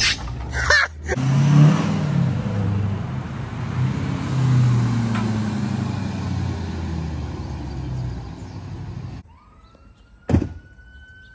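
A vehicle engine runs with its pitch rising and falling, then cuts off suddenly about nine seconds in. After that a distant police siren is heard faintly, gliding up and then holding its tone, with a single thump near the end.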